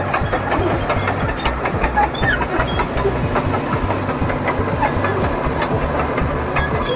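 Caterpillar D4H crawler bulldozer at work: its diesel engine runs steadily, with the clatter of the steel tracks and many scattered sharp clicks and knocks.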